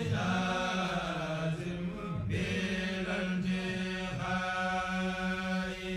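Outro music: a chanted vocal line held in long notes over a steady low drone, with a few changes of pitch.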